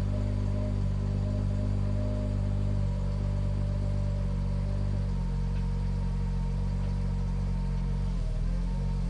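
A 1951 Jaguar XK120's 3.4-litre twin-cam straight-six engine running steadily. Its note shifts slightly about five seconds in and again near the end.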